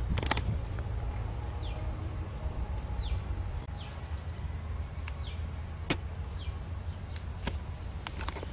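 Woodland ambience: a steady low rumble, a short downward-falling whistled call repeated about five times in the first half, typical of a small bird, and a few sharp clicks or snaps, one near the start and others in the second half.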